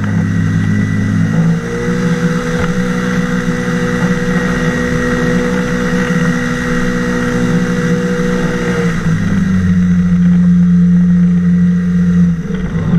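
Engine and propeller of an ultralight flying boat (trike wing over an inflatable hull) running loud and close as it taxis on water. The engine note rises about a second and a half in, holds steady, and drops back to a lower note about nine seconds in as it throttles down.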